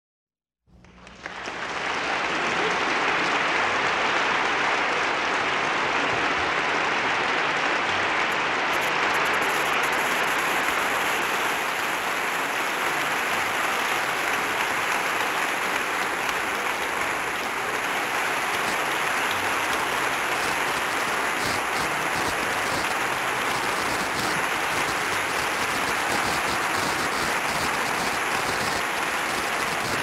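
Concert audience applauding: dense, steady clapping that fades in over the first two seconds.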